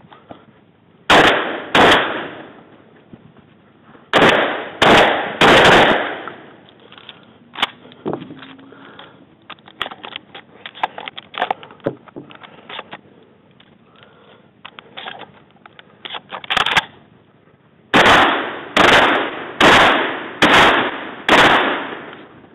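Shotgun fired in quick strings: two shots, then three, then about six, roughly a shot every three-quarters of a second. Between the strings there are many small clicks and knocks as shells are handled and loaded.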